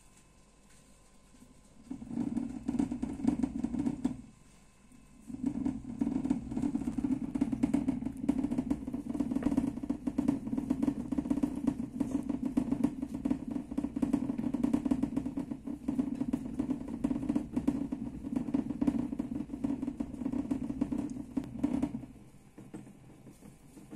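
A hamster's wire-mesh exercise wheel rattling quickly and evenly as it spins. It starts about two seconds in, stops for about a second, then runs on until near the end.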